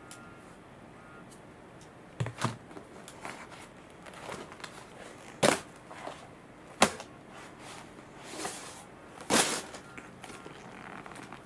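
Handling noise from unpacking an inflatable kayak: a plastic fin, a fabric carry bag and the folded vinyl kayak body being moved and set down, giving short rustles and several sharp knocks a second or more apart.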